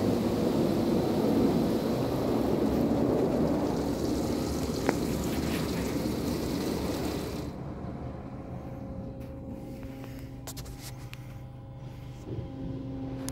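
Blowers of an Autec AES-425 car wash drying with a steady rush of air, cutting off about seven and a half seconds in and leaving a quieter steady machine hum.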